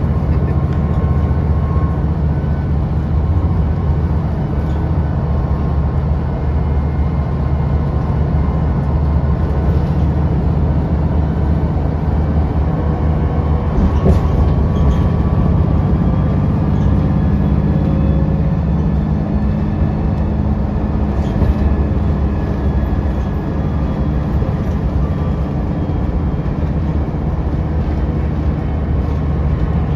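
City transit bus under way, heard from inside the cabin: a steady low engine drone with road noise, and a single knock about 14 seconds in.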